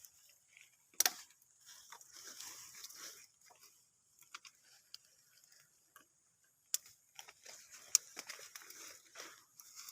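A goat eating leaves: irregular rustling and crunching of foliage as it pulls and chews, with a few sharp snaps, the loudest about a second in and again near eight seconds.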